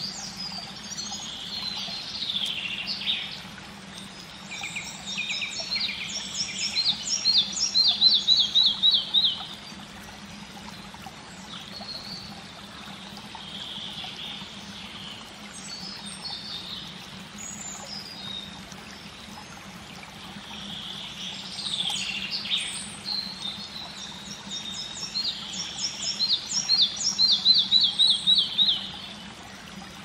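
Red-breasted flycatcher singing two songs, each a jumble of high notes that builds into a fast run of ringing notes, loudest at the end, then stops abruptly. Between the songs there are a few short calls, all over the steady rush of a stream.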